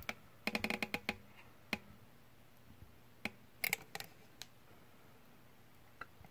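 Caulking gun clicking as its trigger is worked to push polyurethane out of the tube: a quick run of clicks about half a second in, then a few single clicks and a short second run near the middle.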